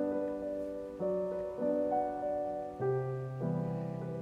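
Background piano music: slow chords, a new one struck about once a second, each ringing and fading before the next.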